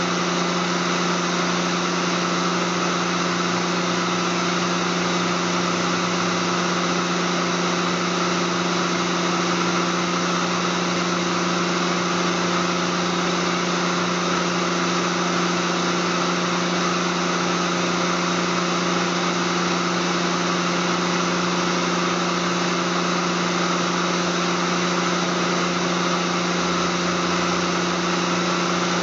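Steady machine hum in a workshop: a constant low drone with a hiss over it, holding level without change.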